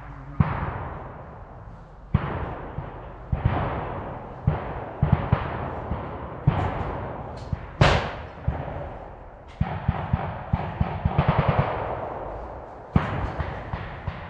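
Battle gunfire of blank-firing WWII weapons: single rifle shots spaced a second or two apart, each echoing away, with a short rapid machine-gun burst about eleven seconds in. The sharpest and loudest shot, near eight seconds, is closest to the camera.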